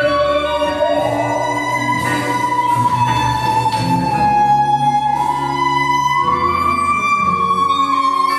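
Instrumental jazz band music: a high lead line holds long notes and slides up into new ones twice, over a bass line and sustained accompaniment.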